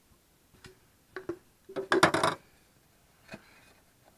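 Handling noise of a pressurized tennis ball being forced into a dirt bike tire past the rim: a few scattered knocks, then a denser burst of rubbing and scraping about two seconds in, the loudest part, and one more short scrape near the end.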